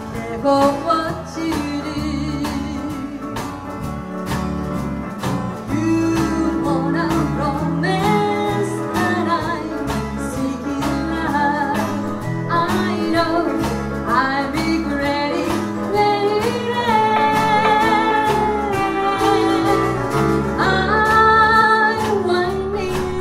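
Live country band music: pedal steel guitar, electric and acoustic guitars and drums, with a melody that slides between notes.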